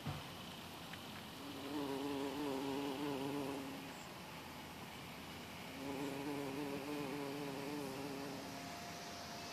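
A large bee buzzing in flight over flowers: two spells of wavering buzz, each about two and a half to three seconds long, with a quieter gap between them. A brief bump right at the start.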